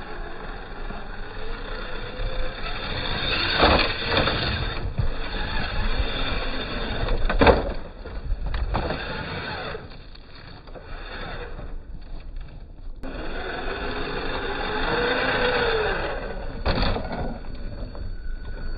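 Radio-controlled scale Chevy pickup crawling over rocks and gravel. Its motor and gears whine, rising and falling, while the tyres and body scrape on stone, with a few sharp knocks.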